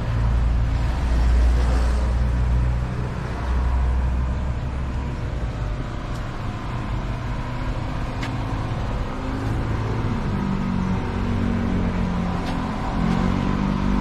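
Motor vehicle engines running close by, with a heavy low rumble for the first several seconds, then a steadier lower hum and a few sharp clicks.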